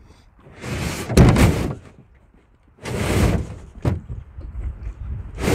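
Hollow thumps and scraping against a canoe hull as a person shifts his weight and climbs out of the canoe, in three bursts about a second long with a sharp knock near the end.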